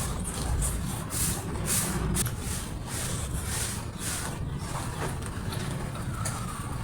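Close-miked eating sounds: chewing and mouth noises in a quick run of crisp bursts, about two a second at first and sparser later, over a low background rumble.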